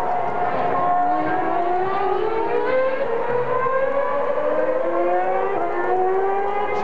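Formula One car's 2.4-litre V8 engine running at high revs. Its pitch climbs steadily, drops back and climbs again as it shifts up through the gears.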